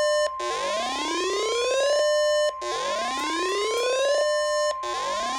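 Emergency alert tones: a steady, high electronic tone, typical of the NOAA Weather Radio warning alarm tone that comes before a National Weather Service warning. Over it, an electronic siren repeatedly sweeps up in pitch, holds a moment and cuts off, about every two and a half seconds.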